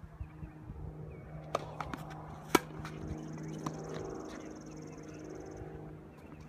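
Tennis ball knocking off a racket and the hard court: a few sharp knocks, the loudest about two and a half seconds in. Beneath them is a steady low hum, with a drone that swells and fades through the middle.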